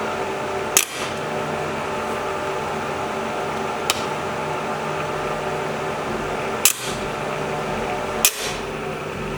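A steady electrical hum with four sharp snaps, about a second, four, seven and eight seconds in.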